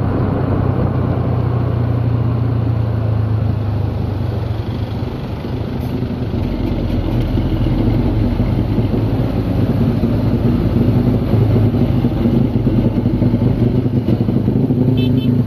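A motor engine running steadily with a low hum, its pitch shifting a little about halfway through.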